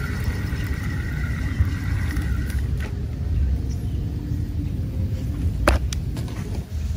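Spinning fishing reel being cranked, a steady whirring whine for about the first two and a half seconds, over a steady low rumble. A few sharp clicks follow, the loudest about two thirds of the way through.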